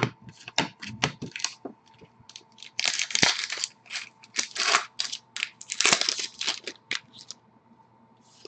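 Hockey card pack wrapper being torn open and crinkled, in several short crackling bursts, after a run of light clicks from cards being handled.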